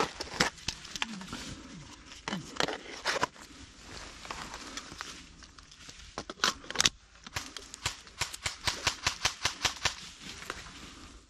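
Crackling, rustling clicks of footsteps through dry undergrowth, irregular at first, then a quick even run of about seven clicks a second in the second half.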